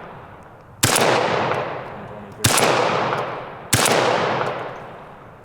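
Shotgun firing three shots, about a second and a half apart, each trailing off in a long rolling echo, with a fourth shot just as it ends.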